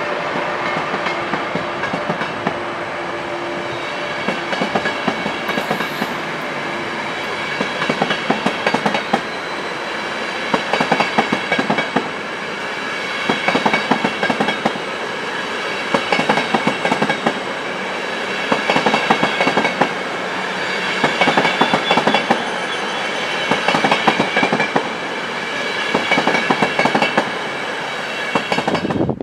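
ÖBB passenger coaches rolling past, wheels clattering over rail joints in a recurring cluster of clicks every two seconds or so as each set of bogies goes by, over a steady rolling rumble with faint high ringing tones from the wheels.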